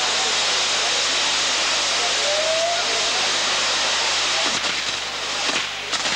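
Ground-firework spinning wheel and spark fountains burning with a steady rushing hiss. Near the end the hiss dips a little and a few sharp cracks come through.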